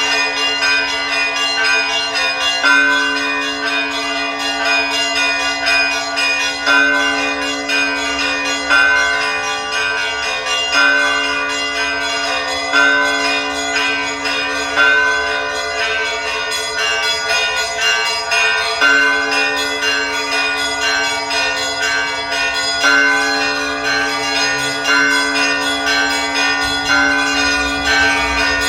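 Church bells ringing a continuous peal: a cluster of smaller bells struck in quick succession over a deeper bell struck every two to four seconds.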